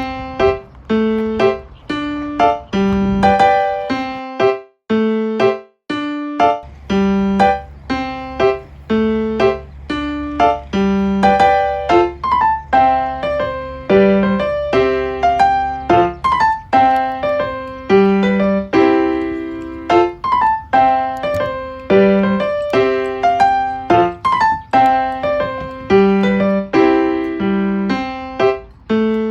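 Background music: a piano melody played as a series of struck notes at a steady pace, with a low sustained bass under part of it.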